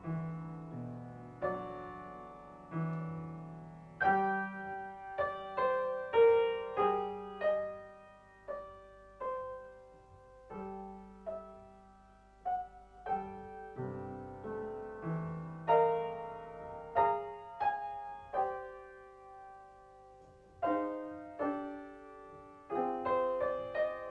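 Piano music: single notes and chords struck one after another and left to ring and fade.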